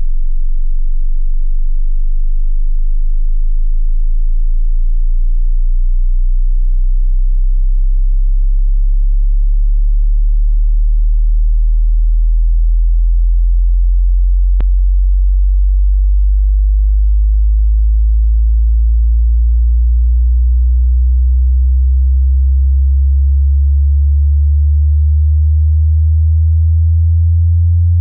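A pure sine test tone from a hearing-test frequency sweep: a very low, steady hum that slowly glides upward in pitch, ending about an octave higher.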